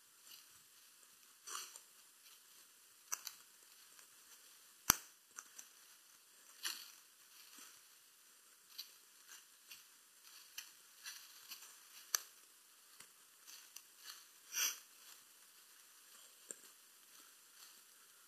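Faint footsteps crunching and brushing through forest undergrowth, heard as scattered crackles roughly every second or two, with one sharper click about five seconds in.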